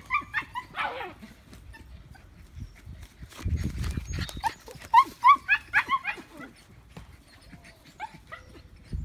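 German shepherd puppies yapping: short, high-pitched yaps, a few near the start and a quicker run of them about four to six seconds in.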